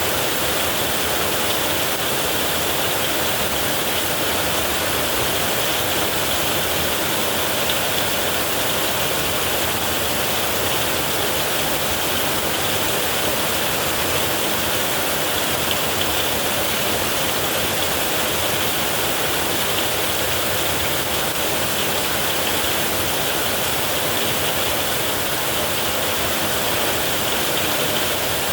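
Heavy rain falling steadily on a tin roof, a constant, even rush of water with no thunder.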